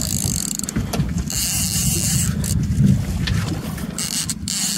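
A 70 hp outboard motor running steadily, with wind gusting on the microphone.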